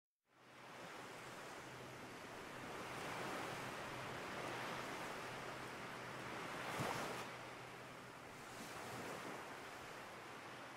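Faint rush of ocean surf, swelling and easing every few seconds, with a sharper surge about seven seconds in.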